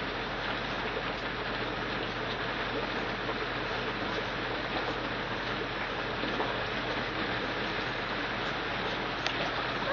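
Steady, even hiss of background noise, with a few faint clicks near the end.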